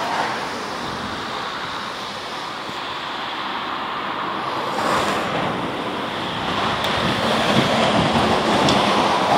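Cars driving past on an asphalt road: a steady rush of tyre and engine noise that slowly grows louder toward the end as a car comes close.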